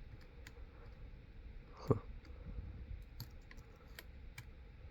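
Light, scattered metallic clicks of a lock pick and tension wrench working the pin stack inside a lock, with one louder tap about two seconds in.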